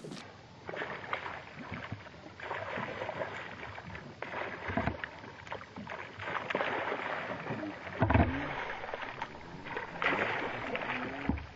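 Water splashing and lapping around a kayak as a school of feeding fish breaks the surface nearby. Two low thumps stand out, about five and eight seconds in.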